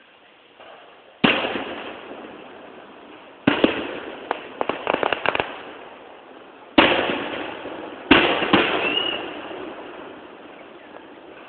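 Fireworks display: four big aerial shell bursts a few seconds apart, each going off suddenly and rumbling away, with a quick run of crackling pops after the second one.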